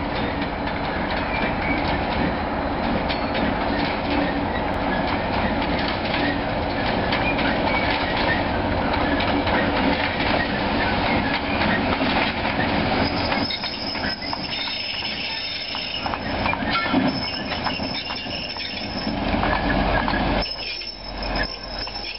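KiwiRail DC class diesel-electric locomotive running as it hauls container flat wagons along the yard track, with the wagons' wheels clicking over the rail joints. About two-thirds of the way in, a high-pitched wheel squeal starts, and it comes back near the end.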